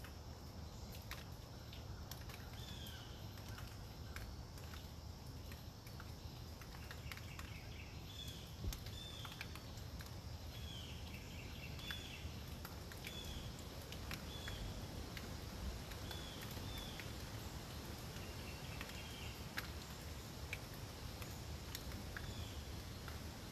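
Steady low wind rush through the storm-wet woods, with scattered sharp ticks of water dripping from the leaves. A bird gives short, high, downward-sliding calls about a dozen times, in loose clusters.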